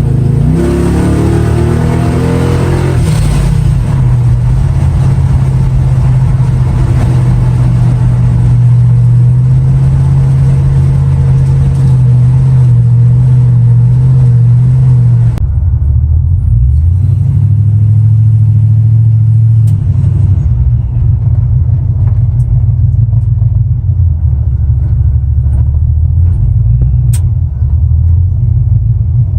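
Supercharged 5.3-litre V8 with an LS9 cam and a Vortech supercharger, running while the truck is under way: a steady deep rumble whose pitch glides up and down in the first few seconds. About halfway through the upper hiss cuts off suddenly, and the engine note carries on lower and steady.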